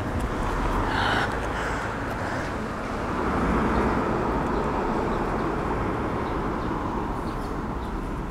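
Street traffic: a vehicle passing, its noise swelling to a peak about three and a half seconds in and slowly fading, over steady outdoor background noise. A short hiss comes about a second in.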